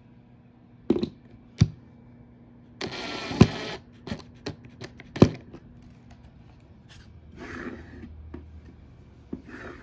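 Cordless drill-driver runs for about a second, driving a small screw through a steel drawer rail into a particle-board panel. Around it, several sharp knocks and clicks of the drill and metal rail being handled, then some rustling.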